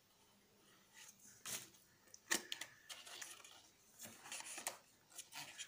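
Faint scratching, rustling and a few small clicks of a paper seal sticker being cut and peeled off a small cardboard product box, with sharper clicks about one and a half and two and a half seconds in.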